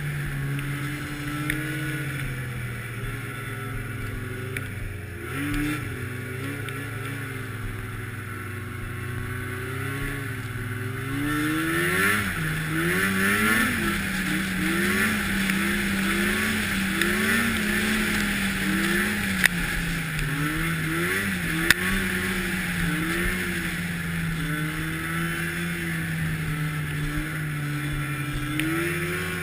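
Arctic Cat snowmobile engine running under way. It holds a fairly steady low pitch at first, then about halfway through it rises and keeps swinging up and down in pitch every second or so as the throttle is worked.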